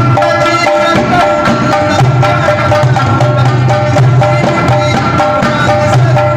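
Pashto folk music: a rabab plucking a quick melody over the hand-struck rhythm of a mangay clay-pot drum, with a man singing in held phrases.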